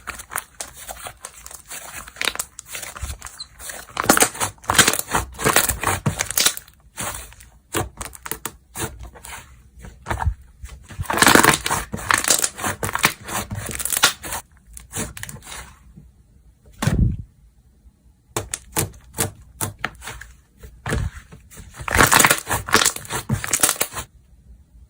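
Slime being squished, stretched and poked by hand, giving close, dense runs of sticky clicks, pops and crackles, with a short pause about two-thirds of the way through.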